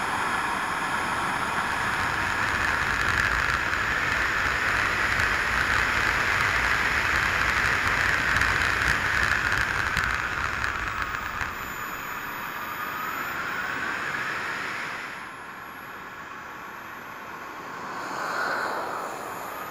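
Radio-controlled model jet flying past: a steady rushing whine that swells and fades, loudest in the first half, dropping away about fifteen seconds in, with a smaller swell near the end.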